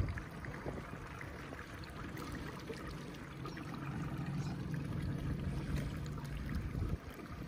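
Water trickling and lapping around a small fishing boat, with a steady low hum joining in from about halfway through and stopping shortly before the end.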